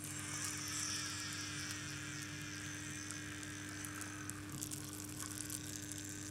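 Leather soaking in a plate of water, giving off a steady faint fizzing hiss with tiny crackles as it soaks the water up. A steady electrical hum runs underneath.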